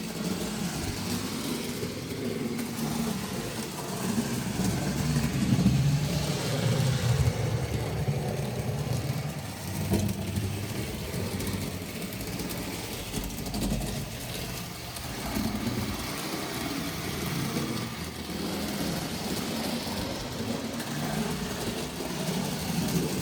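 Tri-ang model train running on the layout: the locomotive's electric motor hums and the wheels rumble on the track, swelling and fading as it goes round.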